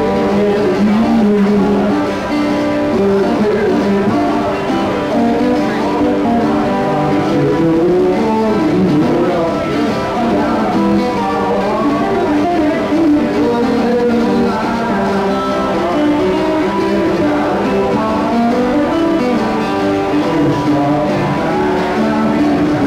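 A man singing into a microphone while strumming an acoustic guitar, a live solo song.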